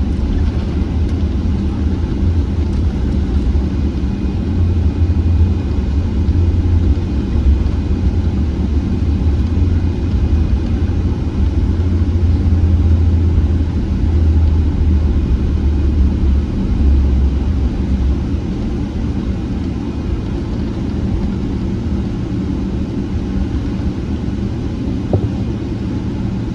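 Steady low rumble of engine and airflow noise heard inside the cabin of a Boeing 777-300ER; the deepest part of the rumble eases a little about two-thirds of the way through.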